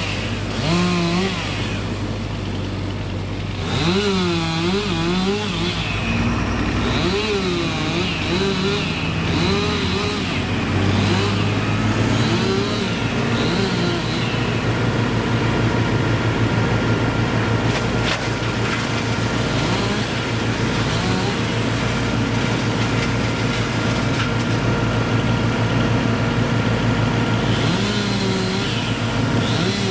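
A chainsaw revving up and down in uneven surges over the steady drone of a larger engine. From about twelve seconds in, the steady engine drone takes over, and the saw's swooping revs come back briefly near the end.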